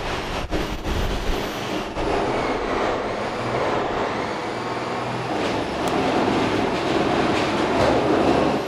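A large vehicle going by, a steady rumbling noise that grows slightly louder near the end.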